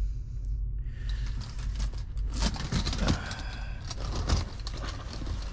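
Fabric privacy curtains in a truck cab being handled and drawn back: a dense rustling of cloth with many small clicks and scrapes of the curtain runners. Under it sits a steady low hum from the truck's running engine.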